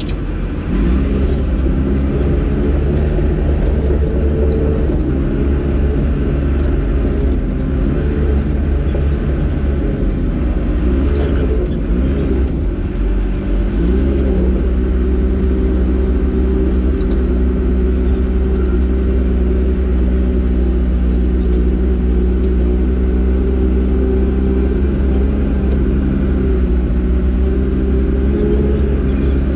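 Crawler bulldozer's diesel engine running steadily under load as the blade cuts and pushes soil, heard close from the operator's seat. The engine note dips and recovers briefly near the start and again about twelve to fourteen seconds in.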